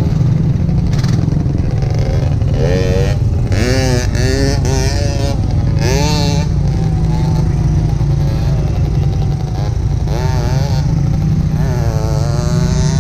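Small off-road engines of ATVs and a dirt bike running: a loud, steady low idle throughout, with several short revs that rise and fall in pitch.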